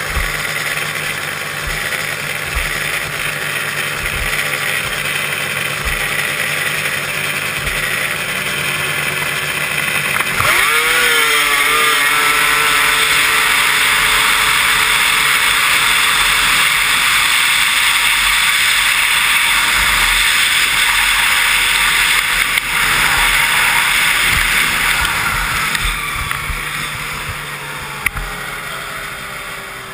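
Arctic Cat drag snowmobile's engine running at the start line, then launching about ten seconds in: a sudden jump to full throttle with the pitch climbing, held for about fifteen seconds. Near the end the throttle comes off and the engine winds down.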